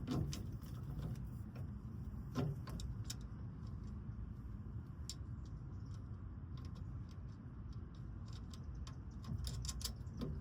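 Scattered clicks and clinks of metal parts and hardware being handled while working under a pickup truck, with a cluster of clinks near the end, over a steady low rumble.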